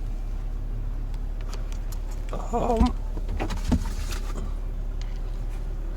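Peugeot 607's 2.2-litre EW12J4 four-cylinder petrol engine idling steadily just after an engine replacement, running sound with no smoke. A short voice comes in about two and a half seconds in, and there are two light knocks around three to four seconds in.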